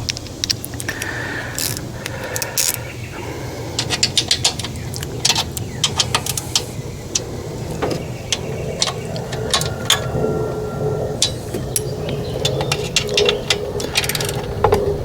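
Metal hand tools clicking and clinking against engine parts as fasteners are worked, with a few quick runs of clicks, over a steady low hum.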